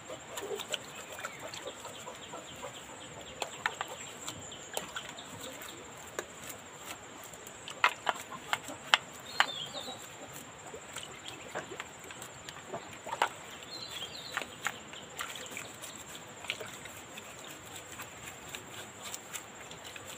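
A stiff brush scrubbing a car cylinder head in a tub of cleaning liquid, wet swishing broken by irregular sharp knocks of the brush against the metal. Chickens cluck briefly a couple of times in the background.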